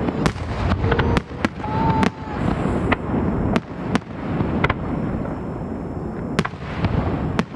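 Aerial fireworks display: about fifteen sharp bangs of shells bursting in quick succession over continuous crackling, with a short lull about five to six seconds in and a brief whistle near two seconds in.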